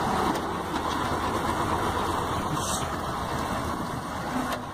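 Lonking wheel loader's diesel engine running steadily.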